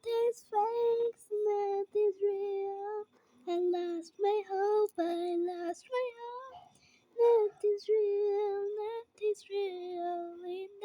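A young girl singing unaccompanied in a high voice, short held notes in phrases broken by brief pauses.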